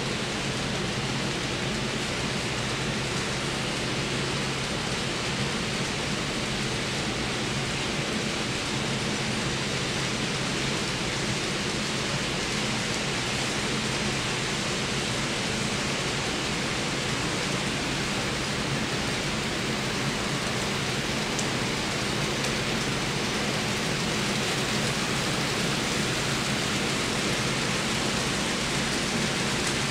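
Steady rolling noise of model trains running on the layout's track, with a faint motor hum, getting a little louder near the end as a model steam locomotive hauling freight cars comes out of the tunnel and passes.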